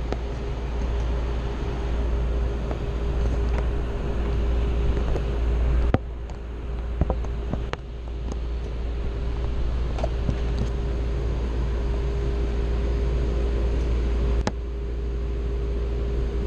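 Steady low rumble and a constant hum inside a train car, with a few short knocks about six, eight and fourteen seconds in.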